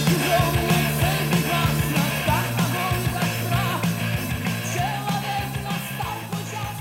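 Background rock music with a steady beat, distorted guitars and a vocal line, fading slightly near the end.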